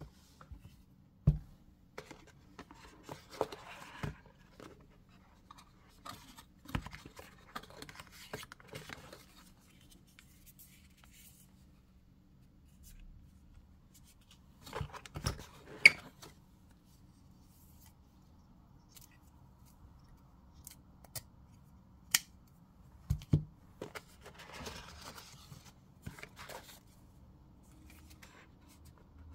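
Hands handling the white cardboard packaging of a Xiaomi tablet box: inserts and paper rustling and scraping as the charger box is lifted out, with scattered sharp clicks and knocks, the loudest a cluster of clicks about halfway through.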